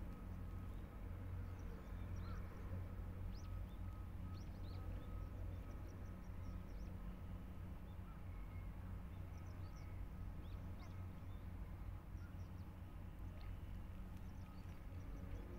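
Seaside ambience: a steady low rumble with many faint, short bird chirps scattered throughout.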